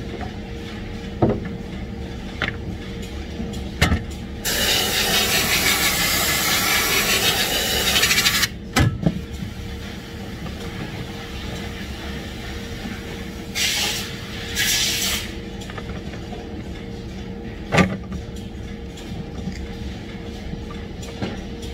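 Compressed air hissing from a pneumatic tool: one long blast of about four seconds, then two short bursts a few seconds later. Underneath are a steady machinery hum and a few sharp clicks and knocks as the hoses are handled.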